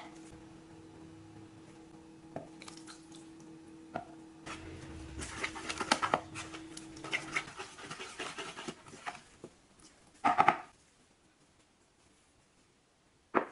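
A utensil stirring a thick, wet flour-and-chilli-paste batter in a plastic bowl, with scraping and clicking for a few seconds over a faint steady hum. A short knock or clatter comes about ten seconds in.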